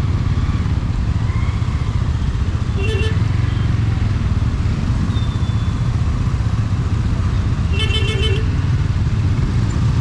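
TVS Apache RTR 200 4V single-cylinder engine running steadily while riding in traffic, with road and wind noise. A vehicle horn beeps briefly about three seconds in and gives a rapid string of short toots near eight seconds.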